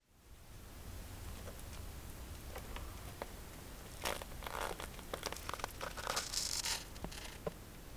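Thin plastic mixing cups and nitrile-gloved hands crinkling and scraping while epoxy resin is poured, over a low steady hum. There are scattered small ticks, and a cluster of louder crinkles comes about four to seven seconds in.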